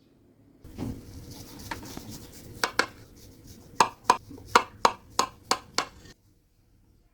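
Kitchen cookware handling: a run of about nine sharp knocks over some three seconds, as a utensil or pan is knocked against something hard. The sound cuts off suddenly a little after six seconds in.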